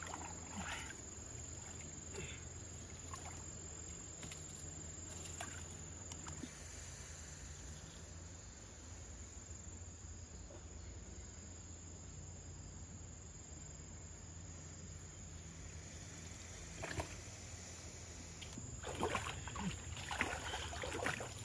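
Small engine-driven water pump running steadily at a distance, a low, even drone. Faint splashes of hands working through muddy water come in near the end.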